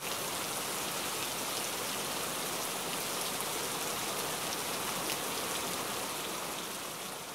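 Steady crackling hiss of a logo-intro sound effect, dense with fine ticks, easing off near the end.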